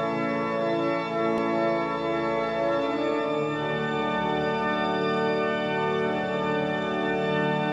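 Organ music playing slow, held chords, with the chord changing about three and a half seconds in.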